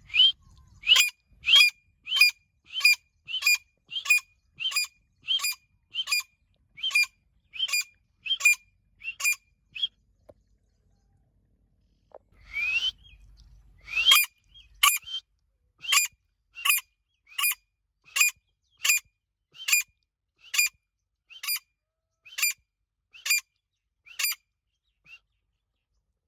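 Female grey francolin (teetar) calling: short, sharp, rising notes repeated evenly, a little under two a second. The run breaks off for a few seconds, a single longer rising note comes around the middle, then the same repeated calls resume and stop a couple of seconds before the end.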